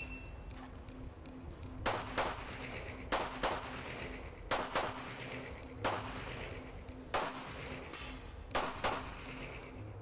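A handgun fired in a rapid string of about ten shots, mostly in quick double-taps with about a second between pairs.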